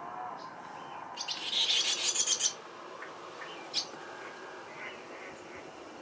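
A swallow twittering: a loud burst of rapid, high chattering about a second in, lasting just over a second, followed by a few short chirps.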